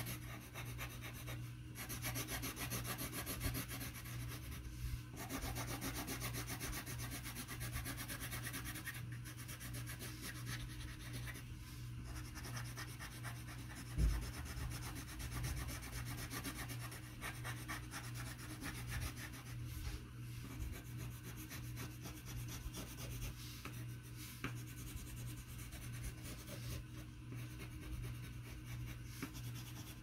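Yellow colored pencil shading back and forth on paper: a steady, rapid, scratchy rubbing of many short strokes. A low steady hum runs underneath, and a single thump sounds about halfway through.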